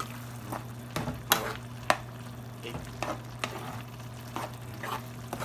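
A fork stirring chicken and vegetables in a frying pan, clinking and scraping against the pan at irregular moments, over a low sizzle of the food cooking.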